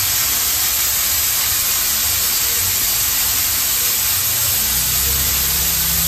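Steam iron fed by a 5 kg-pressure electric steam boiler, blasting a continuous jet of pressurised steam into the air: a steady hiss that shows the boiler is delivering full steam pressure.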